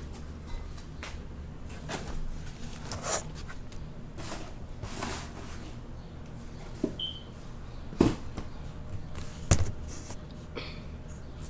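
Handling noise from the recording device being moved and propped up: scattered clicks, knocks and rustles, with two sharper knocks about eight and nine and a half seconds in.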